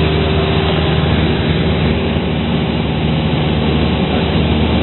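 Cessna 172's engine and propeller droning steadily in cruise flight, heard from inside the cabin.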